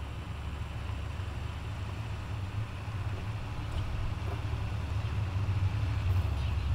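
Konan Bus route bus approaching slowly, its diesel engine giving a low, steady sound that grows gradually louder as it nears.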